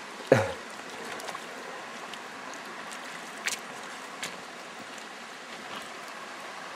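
Shallow river running over rocks: a steady rush of water. About a third of a second in there is one brief, loud sound that drops in pitch, and later a couple of faint clicks.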